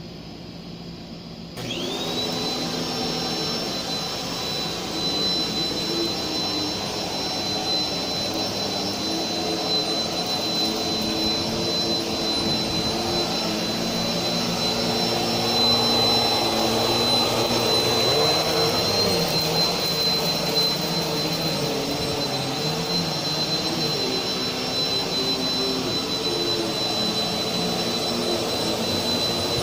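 Upright-style vacuum cleaner switching on about a second and a half in, its motor whine rising quickly to a steady high pitch, then running loudly over new carpet while a lower hum shifts in pitch.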